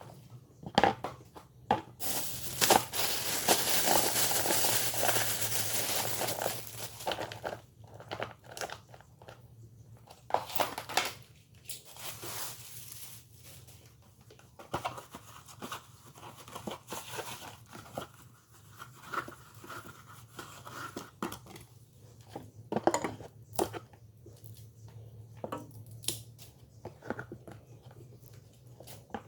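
Plastic packaging crinkling and rustling as groceries are unpacked, with scattered clicks and knocks of items being handled. The longest, loudest crinkle runs from about two to seven seconds in.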